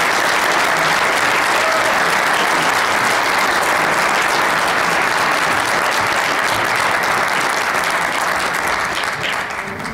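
Audience applauding, a steady patter of many hands clapping that thins and fades near the end.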